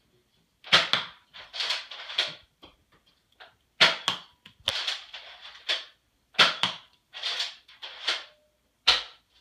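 Nerf Zombie Strike Doominator blaster being primed and fired repeatedly: a dozen or so sharp plastic clacks and pops, some in quick clusters, with short silences between.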